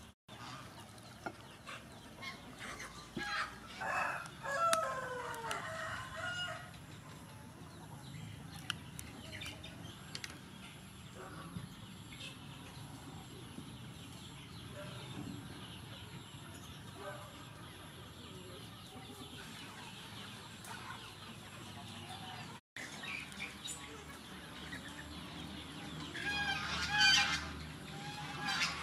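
Farmyard fowl calling: a rooster crows a few seconds in, ending in a falling note, and more loud fowl calls come near the end.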